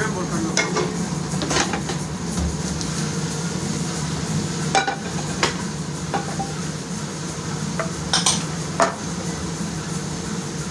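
Metal utensils clinking and scraping against pots and dishes, with about a dozen separate sharp clinks, over a steady low hum.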